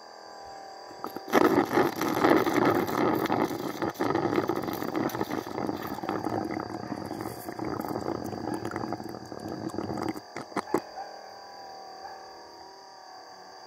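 Honey being sucked out of the wax honey pots of an Itama stingless bee nest through a tube: an irregular suction noise starts about a second in, runs for about nine seconds and cuts off suddenly, followed by a few short clicks.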